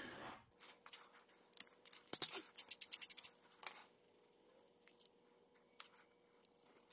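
Light clicks and scrapes of hand tools working on engine parts, scattered, with a quick run of clicks about two to three seconds in, over a faint steady hum.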